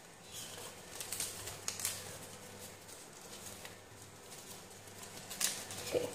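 Paper rustling and crinkling as an origami model is handled, folded and creased by hand. It comes in short scattered crackles, the sharpest about a second in, around two seconds and near the end.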